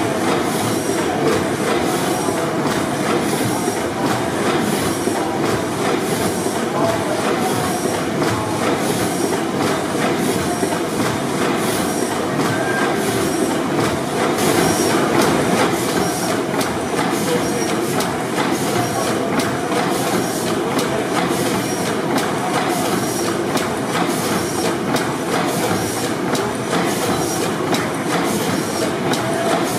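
600 HP Snow pipeline compressor engine, a four-stroke gas engine with two double-acting tandem cylinders, running steadily. Its valve gear and rods make a continuous mechanical clatter with a regular clicking beat.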